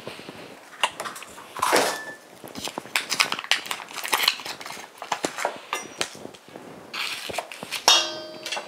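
Kitchen handling sounds: utensils clinking and knocking against a stainless steel mixing bowl and a wooden worktop, in many short knocks. Near the end, one metallic clink rings on for a moment.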